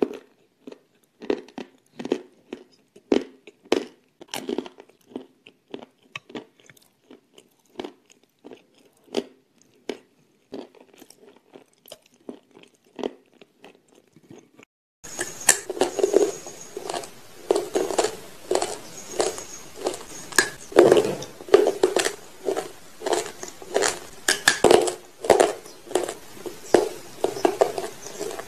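Close-miked biting and chewing of a crunchy white substance of the kind eaten in cornstarch, chalk and clay mukbangs: one sharp crunch after another. About halfway in the recording changes, and the crunches are louder over a steady hiss.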